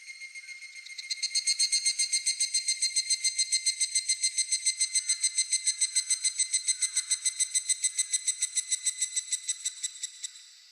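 Higurashi (evening cicada) singing its rapid, ringing kana-kana phrase, about six pulses a second. It swells in about a second in and fades out near the end, over a steady thin high insect tone.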